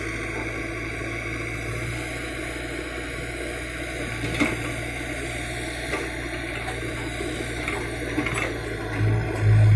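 Case 770 EX backhoe loader's diesel engine running steadily with a deep hum while the backhoe arm swings and digs into soil, with a few short knocks from the bucket and arm. The low hum swells louder near the end.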